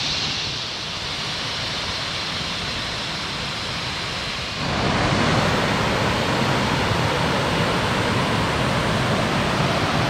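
Steady rushing of a waterfall's cascading water. About halfway through it abruptly becomes louder and fuller.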